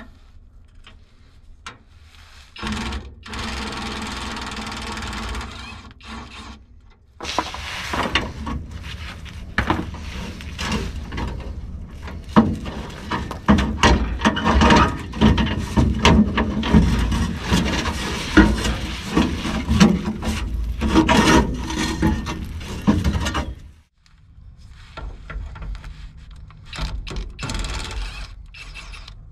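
Kobalt 24-volt cordless impact wrench working rusty exhaust and muffler bolts loose: a steady run of about four seconds, then a long run of rapid clattering hammering lasting about sixteen seconds, and a few short bursts near the end.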